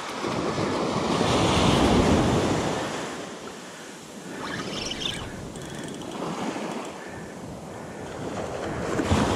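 Ocean surf washing onto the beach. A wave swells and breaks over the first two seconds or so, fades, and another builds near the end, with wind on the microphone.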